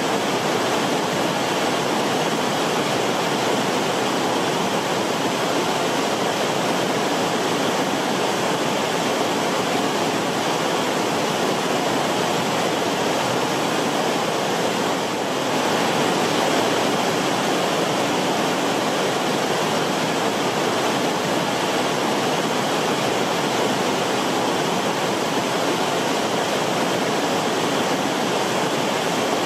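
River water rushing steadily, an even hiss with no separate splashes. It dips briefly about halfway through.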